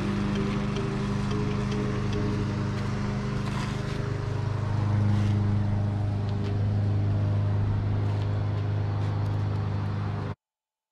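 Background electronic music with a steady low bass, cutting off suddenly near the end.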